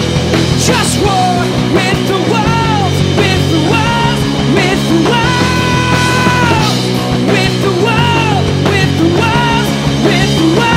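Live rock band: a male lead singer belting over two electric guitars, bass guitar and drums. His sung phrases slide downward at their ends, with one long held note about midway.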